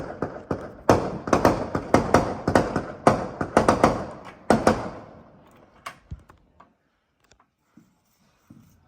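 Fireworks going off: a rapid string of sharp bangs and pops for about five seconds, then a few scattered faint pops.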